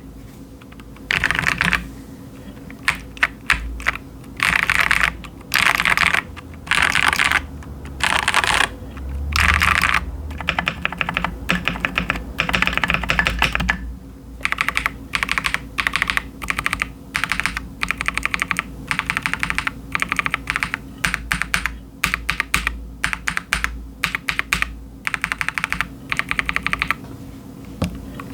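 Typing on a KiiBOOM Phantom 81 gasket-mounted mechanical keyboard fitted with KiiBOOM Crystal switches and Crystal keycaps. Dense runs of keystrokes come in short bursts through the first half, then the presses come more singly and scattered.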